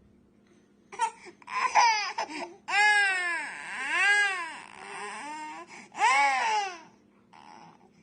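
Infant crying: a few short cries about a second in, then longer wails that each rise and fall in pitch, stopping near the end.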